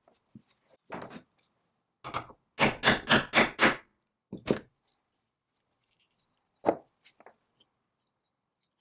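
Hammer blows on a steel hollow punch, cutting a hole through a gasket disc set on a wooden block. A couple of light knocks, then a quick run of five hard blows, followed by two single blows.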